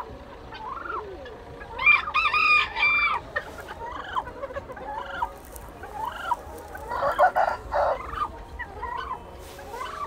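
Chickens calling, short rising-and-falling calls about once a second, with a louder drawn-out call about two seconds in and a harsher call near the end.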